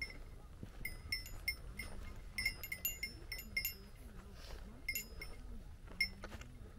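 Small metal bell jingling in a run of quick, irregular, ringing clinks. The clinks pause briefly past the middle, then come a few more times.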